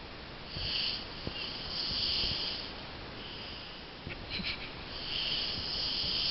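A sleeping man snoring and breathing heavily through his nose: drawn-out hissing breaths, the longest near the end. A few small clicks come about four seconds in.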